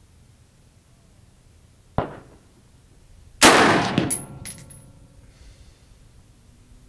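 Two gunshots at a range: a short sharp crack about two seconds in, then a louder shot from the AR-15 rifle with its 16-inch bull barrel and muzzle brake a second and a half later, followed by metallic clinking and ringing as it dies away.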